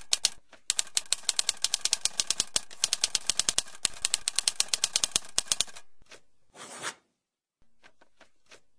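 Typewriter keys clacking in a fast, even run of strokes, about six a second, stopping just before six seconds in. A short swish follows, then a few scattered key strikes near the end.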